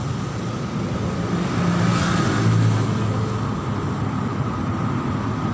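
Steady road traffic with vehicle engines running, one vehicle passing louder about two seconds in.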